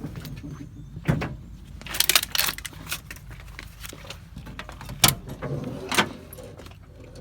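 Tractor cab door being opened and handled: a few sharp metal clunks and rattles, about a second apart at first and again near the end. A steady low engine idle hums underneath.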